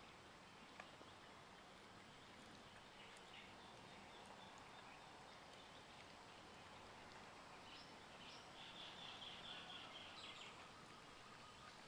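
Near silence: faint outdoor background, with a faint high chittering from about eight to ten and a half seconds in.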